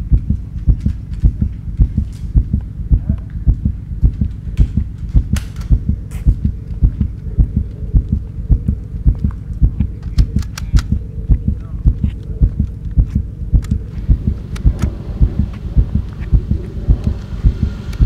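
Heartbeat sound effect: steady, heavy low thumps about twice a second.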